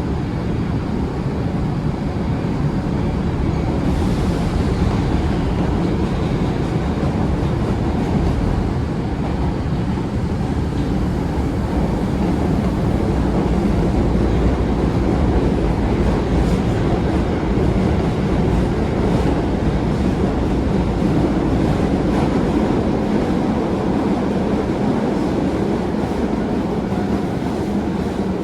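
Osaka Metro 22 series subway train with GTO-VVVF inverter drive running in the tunnel: a steady rumble of wheels and running gear. A faint high tone slides downward about four seconds in.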